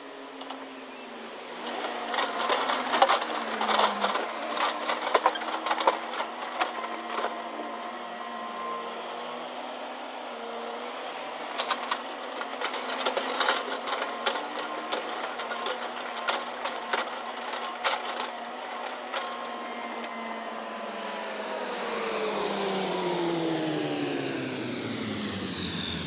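A steady mechanical whine made of several tones, with many sharp crackling clicks laid over it from about two seconds in to about twenty. From about twenty-two seconds in, the whine's pitch falls steadily and it grows louder.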